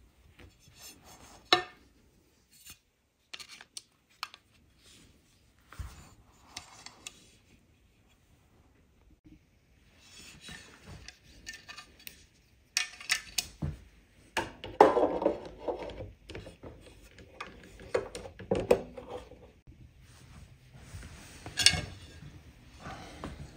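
Handling noises from IKEA Maximera drawer parts and a glass insert panel being worked: scattered clicks, knocks and rubbing or scraping. Sparse at first, busier in the second half, with a few sharp clicks standing out.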